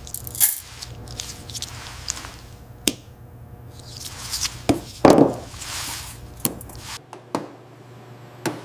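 A steady low hum with scattered sharp clicks and a few short swishing noises, the loudest swish about five seconds in; the hum stops about seven seconds in.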